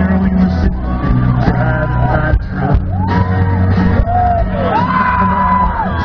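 Live country band playing, with a lead vocal sung over the band, recorded from within the concert crowd.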